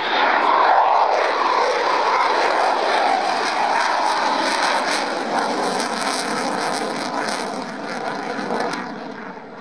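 Jet noise from a Eurofighter Typhoon's two Eurojet EJ200 turbofans as it flies a display pass overhead: a loud, steady roar, loudest about a second in, easing slowly and dropping away near the end, with a crackling edge through the middle.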